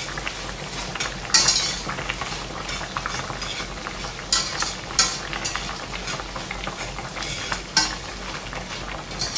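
Diced bacon frying in a stainless steel pan, sizzling steadily, while a spatula stirs it and scrapes against the pan, with several sharp scrapes along the way.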